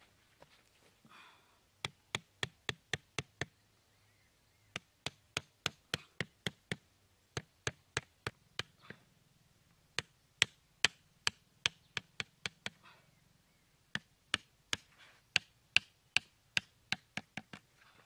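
A machete striking the top of a thin wooden stake, driving it into dirt: sharp knocks about three a second, in several runs with short pauses between.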